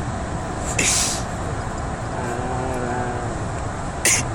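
A dog sneezing in a moving car's cabin: two short, sharp sneezes, about a second in and again near the end, over the steady rumble of the car on the road.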